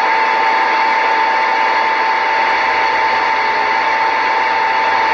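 CB radio receiver static on an open channel during skip, a steady loud hiss with a constant heterodyne whistle from a carrier.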